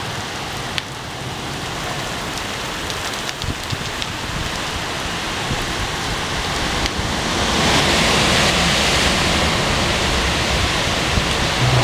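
Heavy rain pouring down in a windy storm, a steady wash of noise with a few sharp ticks of drops in the first seconds. The downpour grows louder about seven seconds in.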